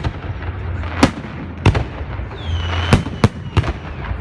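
Fireworks bursting: about six sharp bangs at uneven intervals, with a whistle that falls in pitch about two and a half seconds in.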